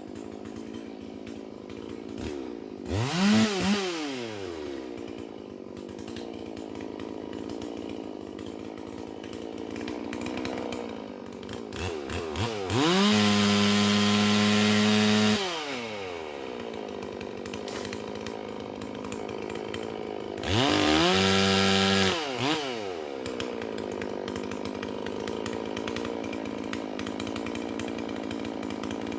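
Holzfforma G444 chainsaw, a two-stroke clone of the Stihl MS440, idling. There is a quick throttle blip about three seconds in. Later come two full-throttle revs, the first held about two and a half seconds and the second about a second and a half, each climbing to a steady high pitch and dropping back to idle.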